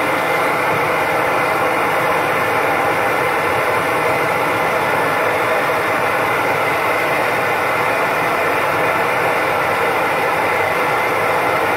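MSR XGK EX pressurized liquid-fuel stove burning at full flame with its standard burner cap, a steady, quite noisy rushing roar, under a kettle of water being brought to the boil.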